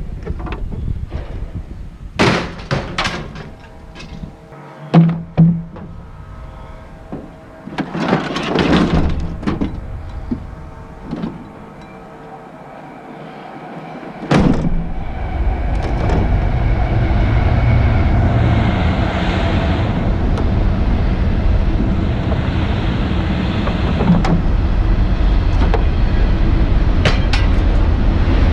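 Scattered clanks and thunks of scrap metal being handled and dropped, then from about halfway a steady low rumble of a vehicle running.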